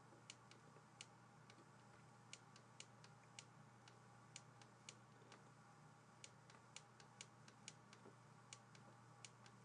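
Faint, irregular clicks of a stylus tip tapping on a writing tablet as handwriting is drawn, about two or three a second, over a low steady hiss.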